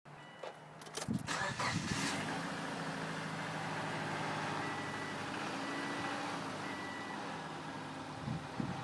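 2004 Subaru 2.5-litre DOHC flat-four engine starting about a second in, then running steadily with the diesel-like 'dugga-dugga' sound whose cause the owner doesn't know.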